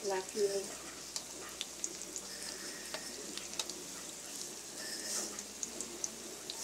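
Oil sizzling and crackling steadily as breaded sticks fry in a wok, with a few sharp clicks of metal tongs against the pan and a brief louder scrape right at the start.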